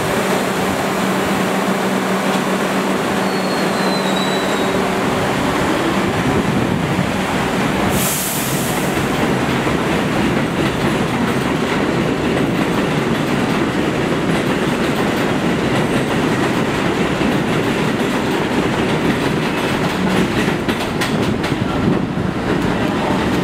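Stainless-steel NYC subway train moving off along an elevated steel structure. A steady hum is heard at first, with a short hiss about eight seconds in. A dense rumble and clatter of wheels on the rails then builds, with clicks near the end.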